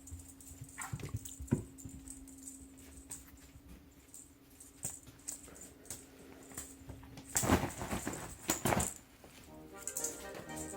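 Soft knocks and patter of cats moving about over a steady low hum, with a loud burst of rustling and scuffling about two-thirds of the way through. Background music with clear notes comes in near the end.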